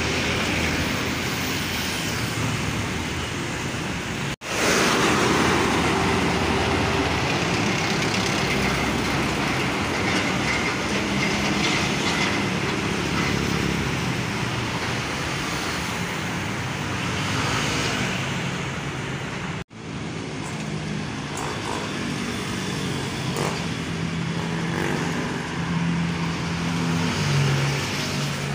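Steady road traffic: trucks, cars and motorcycles driving past, with the low hum of a diesel truck engine growing stronger near the end. The sound drops out for an instant twice.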